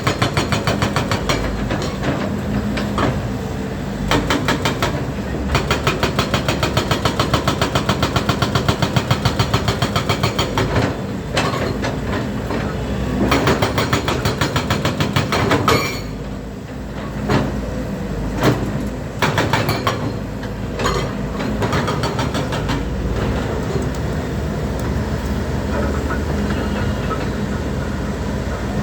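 Excavator-mounted hydraulic breaker hammer firing a rapid, even run of blows, with short pauses, for the first half; then a few separate knocks, and after that the excavator's engine and hydraulics running steadily.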